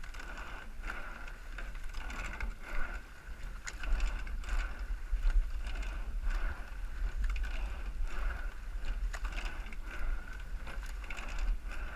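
Rowing eight at racing pace: oars clunking in their oarlocks and sliding seats rolling, repeating with every stroke, over water rushing along the hull and a steady low rumble.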